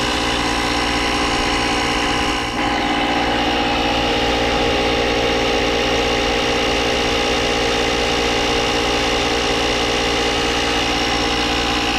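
Portable electric tire inflator's compressor running steadily while pumping up a flat tire that is nearly full, with a brief dip in level about two and a half seconds in.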